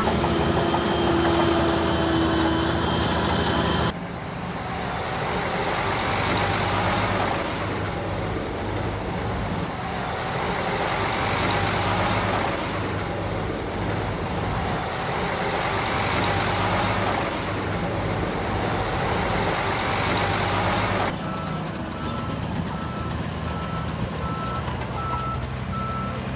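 Heavy diesel earthmoving machinery, bulldozers, running and working under load, the sound changing abruptly about four seconds in. In the last few seconds a reversing alarm beeps in an even pulse over the engine.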